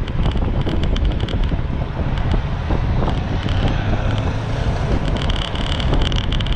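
Wind buffeting the microphone of a camera moving with a bicycle race, a steady low rumbling rush with a fainter higher whir that comes and goes.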